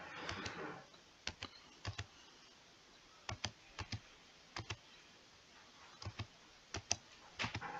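Computer keyboard keys being typed slowly and faintly: single sharp keystrokes, often two close together, with pauses of up to a second between them.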